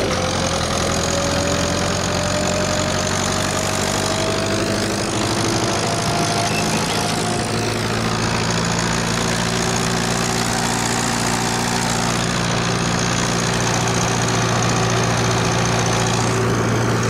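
Ursus tractor's diesel engine running steadily under way, heard from the driver's seat beside the upright exhaust stack. A faint whine rises slowly in pitch over the first several seconds.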